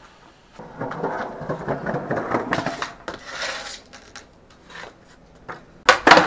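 Paraffin wax rubbed and scraped along a metal handrail for a few seconds. Near the end comes a sharp, loud crack of a skateboard tail snapping down as the skater pops an ollie.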